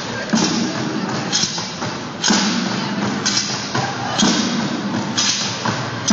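Bucket drumming ensemble: several players beating plastic buckets along with other hand percussion, a heavy accented hit landing about once a second over busier strokes in between.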